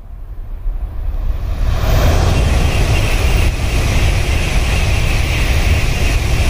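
N700A Shinkansen bullet train passing at speed: a rushing noise with a low rumble that swells over the first couple of seconds, then holds steady and loud.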